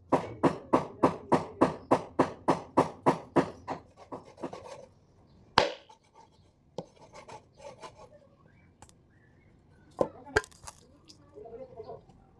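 Knife chopping meat: a fast, even run of about five chops a second for the first three and a half seconds, then slower scattered knocks of the blade, the loudest about five and a half seconds in.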